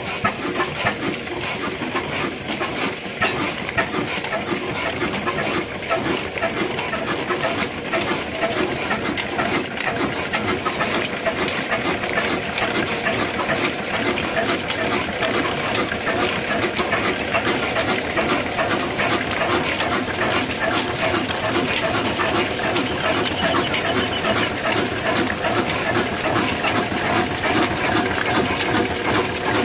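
Old 18 HP stationary diesel engine running steadily, a fast, even mechanical clatter with no change in pace.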